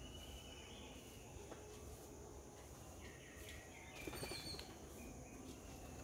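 Faint garden ambience with thin, distant bird calls, and a brief burst of soft clicks about four seconds in.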